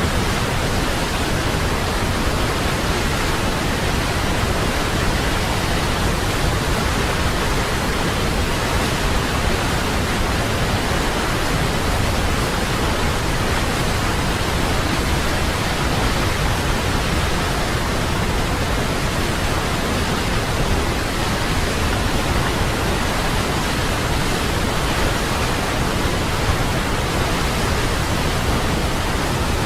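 Waterfall: a steady, unchanging rush of falling water, an even hiss like white noise.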